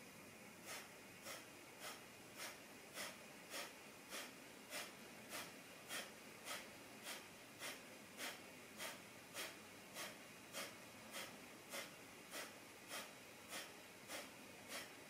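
Kapalabhati breathing: short, forceful exhalations through the nose in a steady, even rhythm, a little under two a second, fairly faint.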